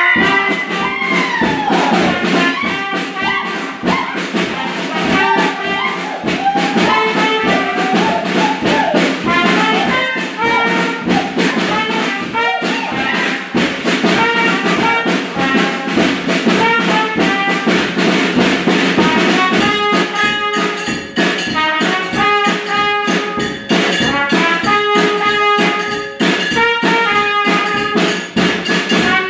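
Brass ensemble playing a tune over a steady beat, with several horns sounding held notes together.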